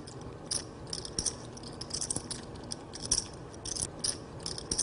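Clay poker chips clicking and rattling in a player's hand at the table: many small, irregular clicks over a low room hush.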